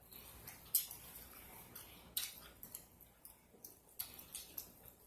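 A person chewing a chicken wing with the mouth open, irregular smacking clicks a few times a second with no voice.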